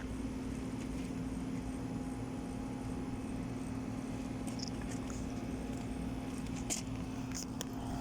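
Steady low machine hum with a constant tone, joined by a few faint clicks and taps in the last second or two.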